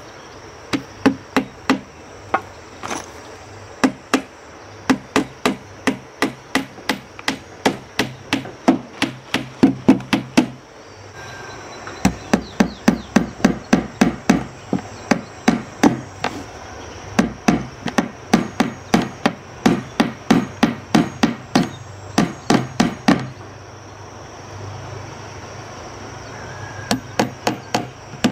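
Claw hammer driving nails into a wooden door frame, striking about two times a second in long runs, with a short break about ten seconds in and a longer one a few seconds before the end.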